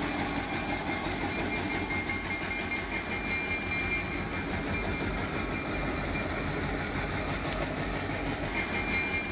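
Diesel freight locomotive's engine running steadily as the train moves along the track.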